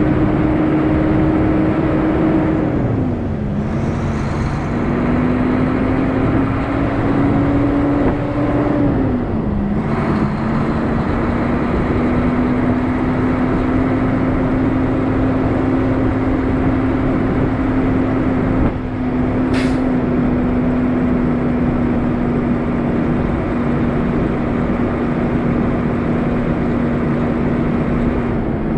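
Semi truck's diesel engine pulling steadily, heard from the cab. Its pitch drops twice, about three and nine seconds in, as it shifts up through the gears, then holds even. A brief hiss of air comes about twenty seconds in.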